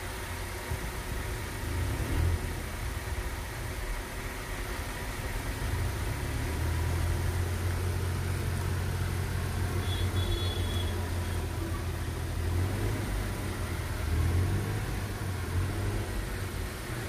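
Motor vehicle engine running with a steady low rumble, a little louder from about six seconds in; a brief faint high beep about ten seconds in.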